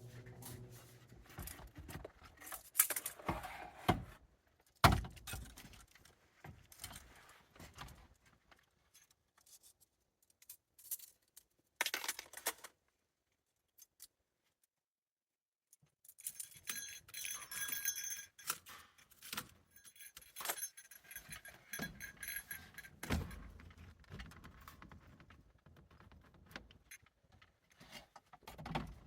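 Clatter, clinks and knocks of hand work with metal hardware, with a sharp knock about five seconds in. There is a stretch of high, ringing, metallic jingling, like loose metal pieces being shaken or sorted. The sound cuts to dead silence for a few seconds midway.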